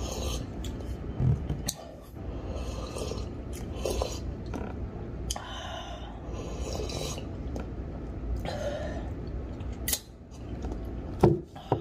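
Close mouth sounds of chewing and sipping coffee from a mug, with many small clicks, and a sharp knock near the end.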